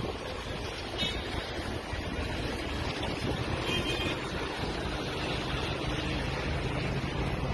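Wind rushing over a phone's microphone: a steady, rough noise with a low rumble underneath.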